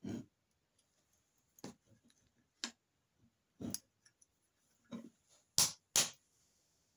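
Sharp metallic clicks and knocks from handling and fitting the trigger mechanism into an aluminium crossbow stock, about seven in all, with two louder knocks close together near the end.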